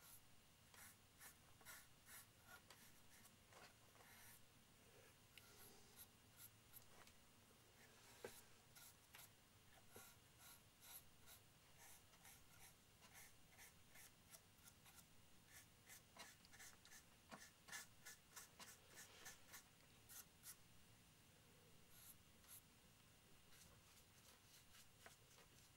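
Faint scratching of a fine paintbrush stroking paint onto a model part, short quick strokes coming in irregular runs.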